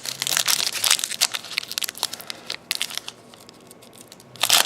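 Crinkling and rustling of a trading-card pack's foil wrapper and cards being handled: a dense crackly rustle for about two seconds, a quieter stretch with a few light clicks, then another short burst of crinkling near the end.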